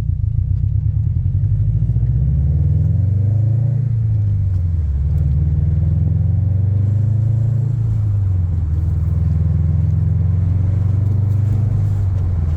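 Subaru WRX STI's turbocharged 2.5-litre flat-four engine pulling on the road. The engine note climbs for a couple of seconds, drops about four seconds in, holds steady, then falls again around eight seconds in, as with gear changes and lifting off.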